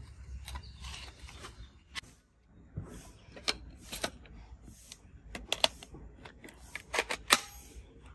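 Plastic toy lightsabers being handled: a scatter of sharp plastic clicks and knocks, several in quick succession about halfway through and the loudest two near the end.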